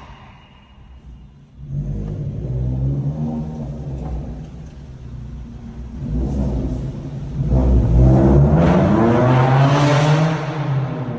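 Maruti Suzuki Brezza's engine being revved: it comes in about two seconds in and runs steadily, then climbs sharply in pitch about seven seconds in, holds high and eases off near the end.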